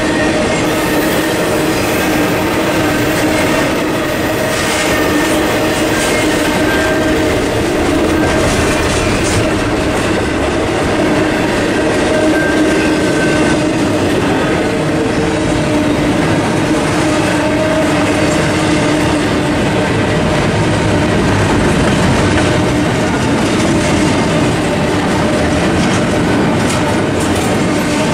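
Intermodal freight train cars, double-stack container and well cars, rolling steadily through a grade crossing at a constant level.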